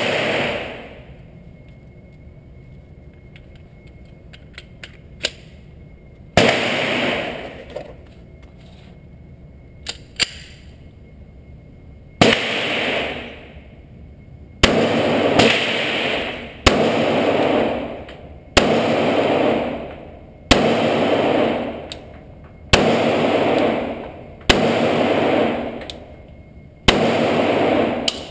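Pistol shots from a Glock 30 firing 230-grain .45 ACP hardball, each a sharp report followed by about a second of booming echo off the range's concrete walls. About ten shots: two spaced several seconds apart, then a steady string of one every second or two, with a few light clicks of gun handling between the early shots.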